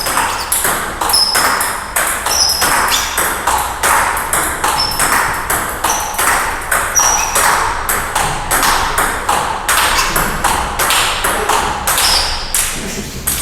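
Fast table tennis rally: a celluloid-plastic ball being struck by bats and bouncing on the table in a quick, even run of sharp pocks, about three a second, each with a brief high ring.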